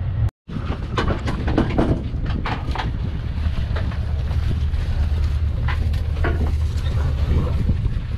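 A steady low rumble with scattered short clicks and clatter, broken by a brief dropout to silence just after the start.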